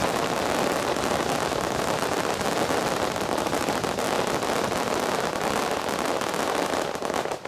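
Star mine fireworks volley: many aerial shells bursting and crackling in quick succession as one dense, continuous crackle that cuts off suddenly near the end.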